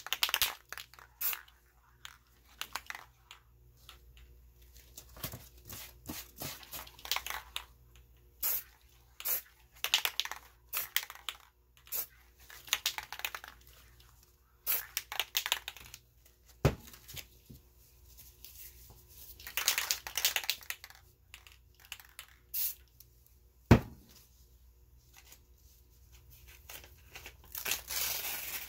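Aerosol spray paint can hissing in many short spurts, with longer sprays about two-thirds through and near the end. Two sharp knocks in between, the second the loudest.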